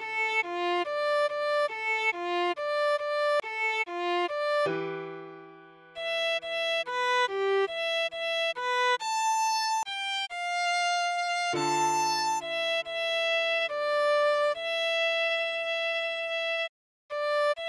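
Viola playing a melody in short, even notes over sustained minor chords that change every few seconds and slowly fade. The sound cuts out for a moment near the end.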